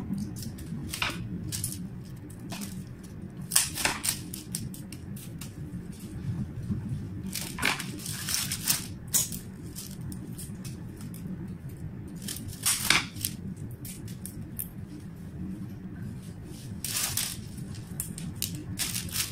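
Scissors snipping flower stems, with leaves and stems rustling as they are handled: sharp snips at irregular moments every few seconds.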